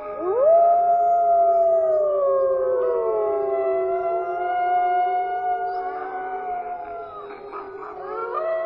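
Several wolves howling together, their long howls overlapping; one rises sharply at the start, holds, then slides down in pitch while others sustain and glide around it.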